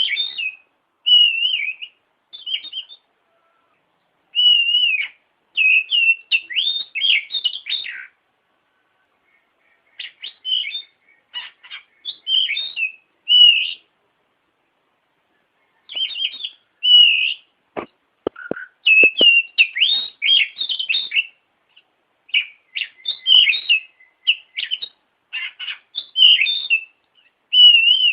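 Oriental magpie-robin (kacer) singing in bursts of rich, varied whistled and warbling phrases, separated by short pauses. A few sharp clicks come about two-thirds of the way through.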